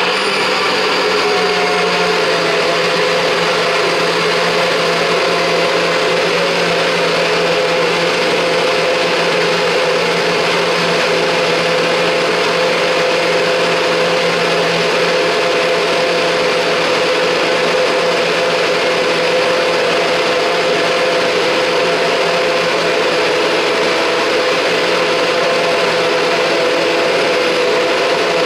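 Nutribullet blender motor running steadily at full speed, blending a cup of chopped golden beetroot, fruit, frozen ginger and juice into a smoothie.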